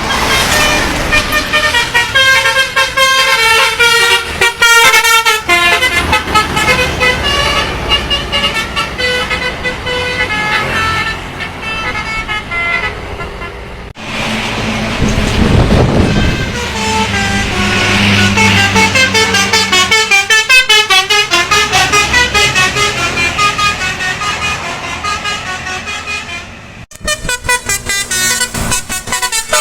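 Telolet bus horns, multi-tone musical air horns, playing quick melodic runs of notes. The sound breaks off abruptly and starts again about 14 and 27 seconds in, with a short rush of noise soon after the first break.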